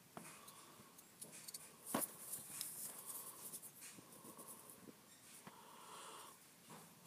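Quiet room with faint taps and handling clicks from fingers on a tablet screen, the sharpest click about two seconds in.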